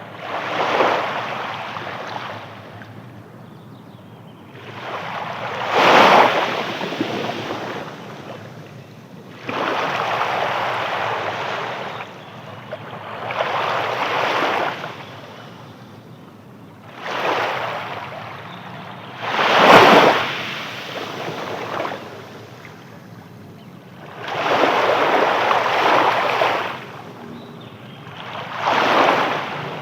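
Sea waves breaking, each wave a rush of water that swells and fades every few seconds. The sharpest crashes come about six seconds in and near twenty seconds in.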